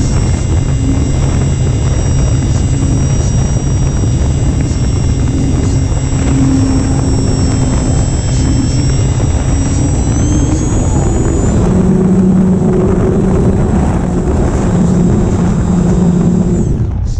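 Electric motor and spinning propeller of a Phoenix S 1600 RC glider under power: a steady high whine over heavy wind rush on the onboard camera's microphone. The whine rises in pitch about two-thirds of the way through and cuts off just before the end.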